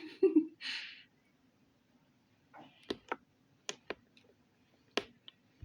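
Slime being squeezed and poked by hand: a short squelch and a hissy squish near the start, then a scattered series of sharp wet clicks and pops.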